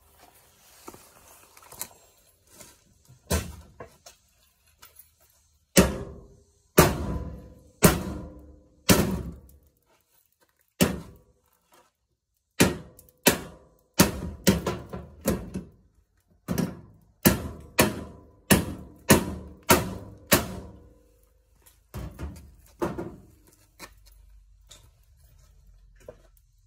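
Heavy knocks on metal as a washing machine is dismantled for scrap: about twenty blows, some single and some in quick runs, each followed by a short ringing.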